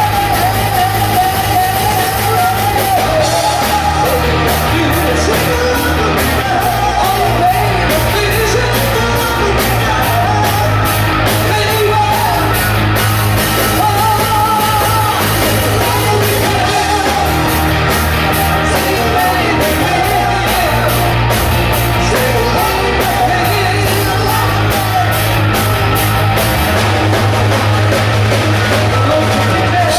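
Live rock band jamming with a male singer: bass notes held and shifting every few seconds under steady drums and cymbals, with the voice wavering over the top. The recording is loud and rough.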